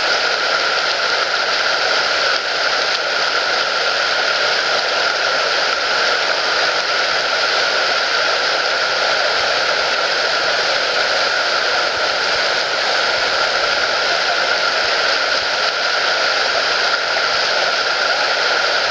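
Steady rush of river rapids: a constant, unchanging hiss of churning white water.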